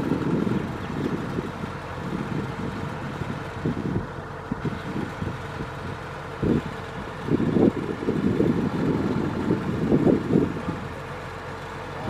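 Kubota DC-105X combine harvester's diesel engine running steadily, with irregular gusts of wind buffeting the microphone in low rumbles.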